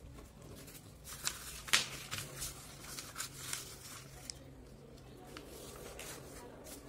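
A sheet of lined notebook paper being folded and pressed flat by hand: irregular rustles and crisp crinkles of paper creasing, the sharpest about two seconds in.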